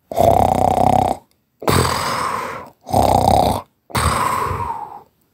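Loud, exaggerated snoring: four rough snores, each about a second long, with short silences between them, alternating in-breath and out-breath.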